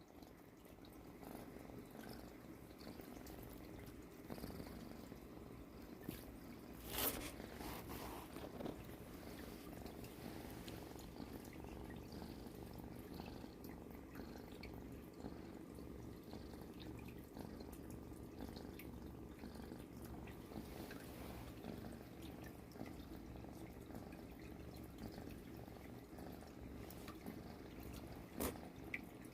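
Domestic cat purring steadily with a low, snoring-like rumble. A sharp click sounds about seven seconds in, and another comes near the end.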